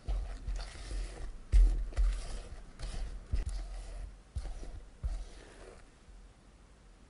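Spatula folding macaron batter in a glass bowl, working almond flour into meringue: irregular soft scrapes and squishes with low knocks against the bowl, the strongest about a second and a half in, thinning out after about five seconds.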